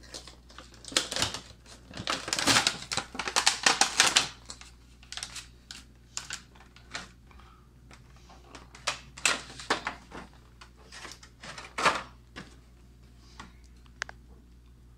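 Clear plastic blister pack being pried off its glued card backing and handled: irregular crackling and clicking of stiff plastic, with a dense run about one to four seconds in and another cluster around nine to twelve seconds.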